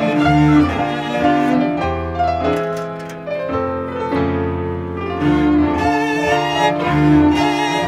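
Classical music: a bowed string instrument playing long held notes over piano chords.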